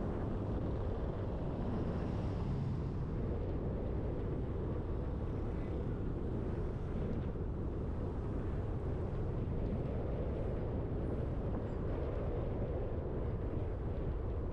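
A car driving at steady speed: continuous, even road and engine noise.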